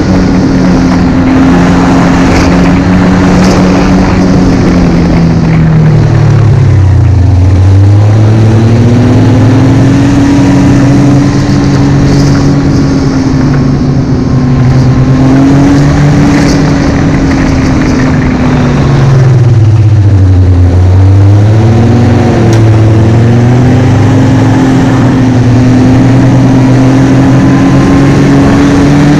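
Snowmobile engine running at speed, its note falling sharply and climbing back twice, about seven seconds in and again about twenty seconds in, as the machine eases off and speeds up again.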